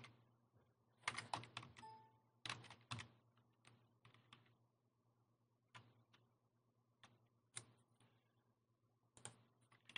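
Faint computer keyboard keystrokes: scattered single clicks and short runs of key presses with pauses between them, over a faint low hum.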